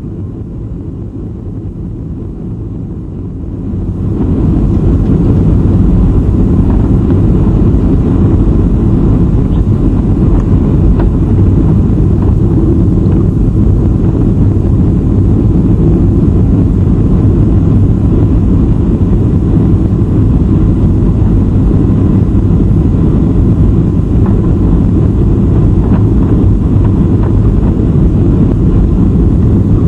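Cabin noise of a Boeing 737-800 on approach with its flaps extended: a steady low rumble of airflow and CFM56-7B engines. About four seconds in it grows sharply louder and fuller, then holds steady.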